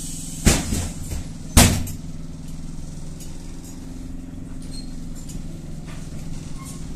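Steady low electric running hum inside a Kiev-12.03 trolleybus, with two loud sharp bangs about a second apart near the start.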